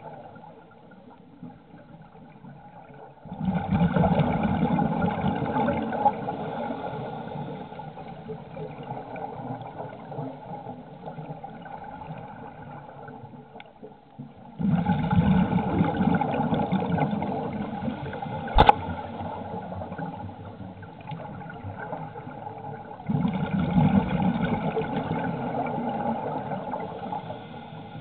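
Heard underwater: a scuba diver's exhaled bubbles rushing and gurgling out of the regulator in three bursts about ten seconds apart, each starting suddenly and fading over several seconds. One sharp knock about two-thirds of the way through.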